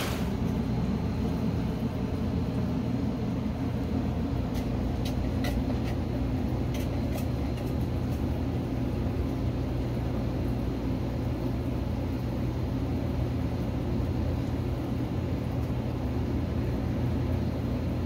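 Steady low mechanical hum, with a few faint ticks about four to seven seconds in.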